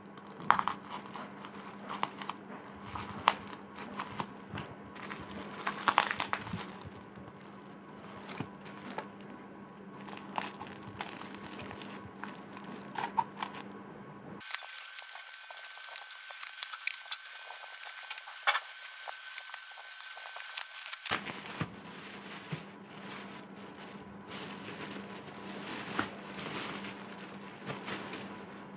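Plastic bubble-wrap packaging crinkling and crackling in irregular bursts as it is handled and cut open with scissors.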